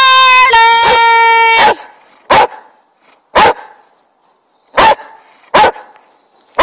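A dog gives a long, high, steady-pitched cry in two parts, then barks five times, about one bark a second.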